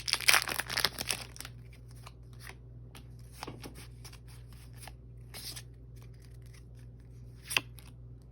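Foil Pokémon booster pack crinkling as it is torn open for about the first second, then soft scattered swishes and clicks of trading cards being slid and flipped, with one sharper click near the end.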